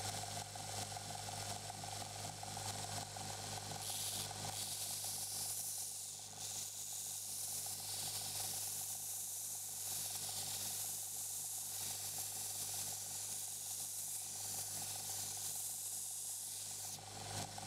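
Electric belt grinder running steadily with a motor hum while a high-carbon steel knife blade, cut from a reciprocating saw blade, is ground against the abrasive belt. The grinding hiss swells and fades with each pass of the blade, about every two seconds.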